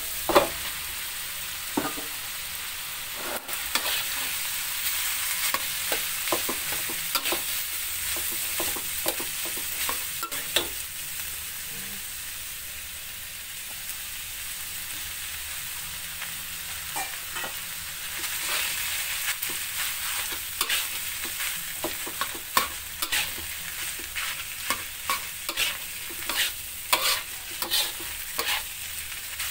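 Shrimp and rice sizzling in a metal wok while a metal spatula scrapes and knocks against the pan, with a sharp knock right at the start. The stirring strokes grow quicker and louder over the last third.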